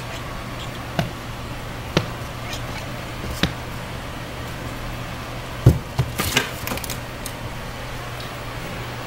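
Light thumps and scuffles of a cat and small dogs pouncing and scrambling on the floor. A few scattered knocks lead up to the loudest thump about halfway through, followed by a brief flurry of scuffling, all over a steady low hum.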